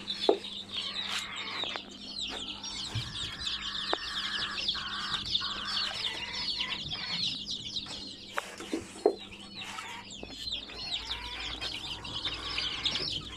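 A brood of baby chicks peeping nonstop, a dense chorus of high, short, falling chirps, with a couple of sharp knocks, the loudest about nine seconds in.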